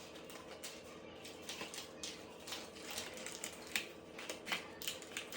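Clear tape and cardboard being handled: a run of irregular small clicks and crinkles.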